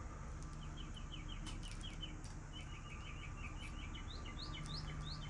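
A small bird singing faintly: quick runs of short high chirps, then a few rising notes near the end, over a low steady hum.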